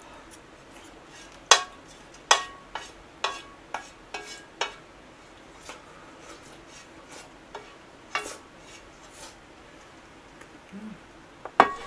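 A wooden spoon tapping and scraping the last porridge out of a shallow metal pan: about seven sharp clicks in quick succession, each with a short ring, then scattered fainter taps. A louder clank comes near the end, as the pan is set down on the table.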